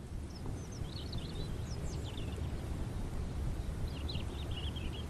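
Outdoor ambience: a steady low rumble with small birds chirping in two short bursts, about a second in and again near the end.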